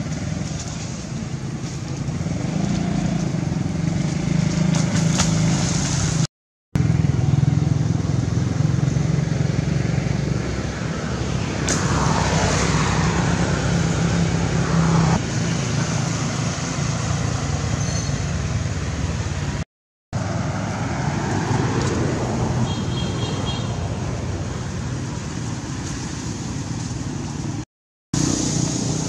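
A steady low engine rumble, like a motor vehicle running, that cuts out to silence briefly three times.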